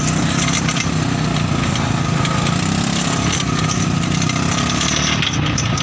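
Small off-road vehicle engines running steadily at low speed on a dirt trail, a constant engine hum with a faint steady whine above it.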